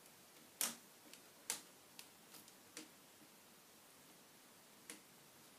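A few faint, sharp clicks and ticks of a small screwdriver and screws being worked at a laptop's screen hinges, spread unevenly, the loudest about half a second and a second and a half in.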